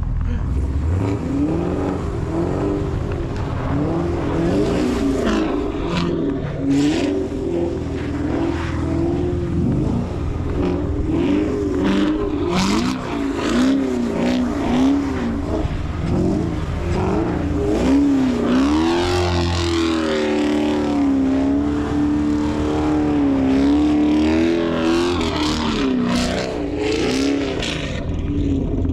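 Camaro SS 1LE's 6.2-litre V8 revving up and down again and again as the car is driven hard in snow, its pitch rising and falling continuously.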